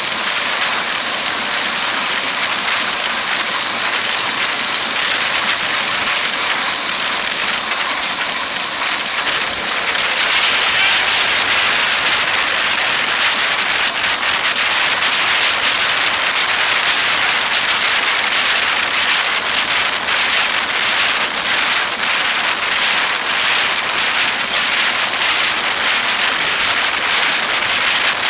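Steady rushing wind noise on a bike-mounted camera microphone while riding at speed on a highway, mixed with road and traffic noise. About ten seconds in it gets louder and harsher, with crackling.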